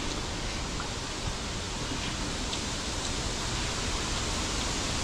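Strong wind blowing steadily: an even rushing noise with a low rumble of the gusts on the microphone.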